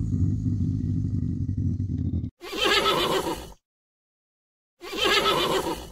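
A low, rough rumbling animal sound that cuts off abruptly about two seconds in, followed by a whinnying call heard twice, each about a second long, with dead silence between.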